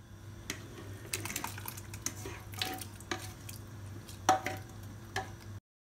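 Plastic spatula scraping and knocking against stainless steel pots as rice and a chickpea-tomato mixture are spooned in: an irregular string of scrapes and clinks, the loudest knock about four seconds in, over a steady low hum. The sound cuts off suddenly near the end.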